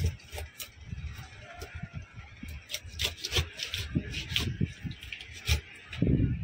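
Fish being cut by hand against an upright blade fixed to a wet wooden board: irregular sharp clicks and knocks with low thuds as the flesh and bone are pressed through the blade and pieces land on the board, busiest around the middle.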